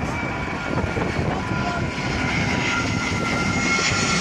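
Jet airliner's engines whining with several steady high tones over a rushing noise that slowly grows louder, the pitch dipping slightly near the end.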